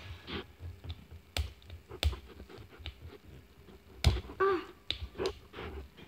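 Crinkly plastic wrapper of an L.O.L. Surprise ball crackling and clicking as fingers grip and pick at it: irregular sharp clicks, the loudest about four seconds in.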